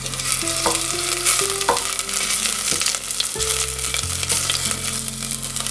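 Chopped onion and a sprig of rosemary sizzling in olive oil in a stainless steel pot, with a steady crackling hiss as a wooden spatula stirs them. The onion is being sautéed until golden, the soffritto stage of a soup.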